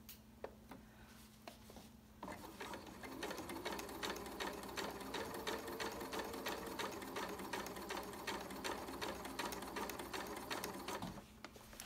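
Janome sewing machine running a basting stitch through zipper tape and hoodie fabric: a rapid, even ticking of the needle over the motor's hum. It starts about two seconds in and stops shortly before the end, after a few light clicks.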